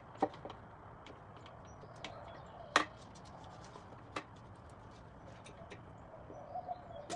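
A few sharp knocks and clicks from handling engine parts and hand tools while connecting-rod caps and bearings are being removed. The loudest knock comes about three seconds in.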